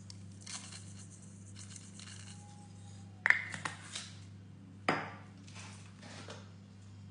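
Kitchenware clinking off to the side: a sharp clink with a brief ring about three seconds in, a few lighter knocks after it, and another knock near five seconds, over a steady low hum.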